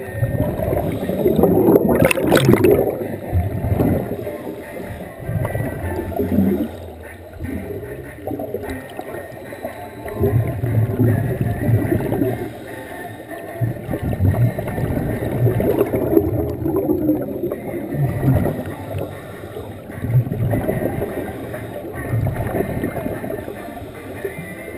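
Scuba divers' regulator exhaust bubbles rumbling and gurgling in irregular surges every few seconds, heard underwater, with music played underwater in the pool in the background. One louder burst comes about two seconds in.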